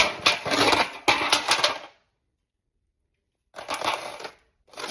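Clatter and scraping as cooked noodles are dished into pans: a quick run of clicks and scrapes for about two seconds, then more starting again near the end.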